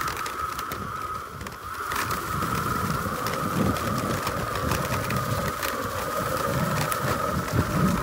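Bajaboard GX4 electric off-road skateboard rolling along a dirt trail at a slow, steady speed: a steady high whine from its electric motors over the rumble of the wheels on dirt and leaves, with scattered clicks and knocks. The rumble grows louder about two seconds in.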